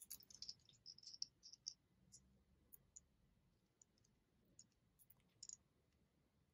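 Faint clicks and taps of a small plastic Kinder egg toy car being handled and snapped together, a quick run of clicks in the first couple of seconds, then scattered single clicks.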